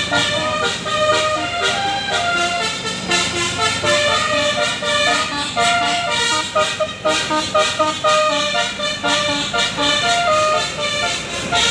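Basuri telolet bus horn, a multi-trumpet air horn, playing a melody of quick stepped notes, several tones sounding together.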